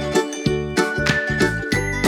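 Background music: tinkling, bell-like notes over a bass line with a steady beat.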